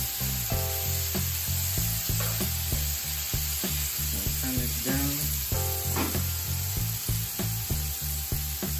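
Beef strips, peppers, onions and mushrooms sizzling steadily on a hot flat-top griddle as they are turned with metal tongs. Background music with a steady beat plays underneath.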